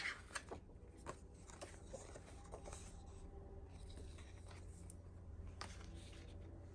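Faint handling sounds of album packaging and paper being unpacked: a string of light taps, clicks and rustles, the sharpest right at the start, over a steady low hum.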